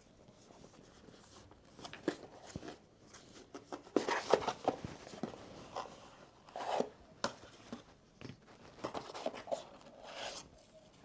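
Hands handling a puzzle box and its loose parts or packaging: scattered rustles, taps and small clicks, busiest about four seconds in and again near seven seconds.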